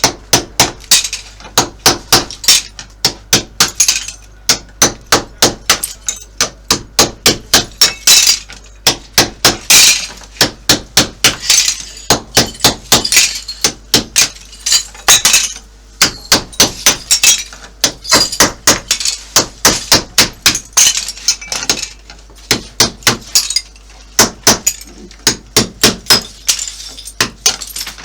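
Hammer striking a carbide-tipped chisel about three times a second, chipping bathroom tiles off a wall, with the tiles cracking and pieces clinking as they break away.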